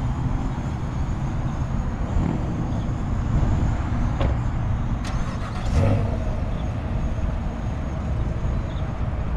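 Chevrolet Camaro's LT1 V8 engine running with a low steady rumble, with a brief swell about six seconds in.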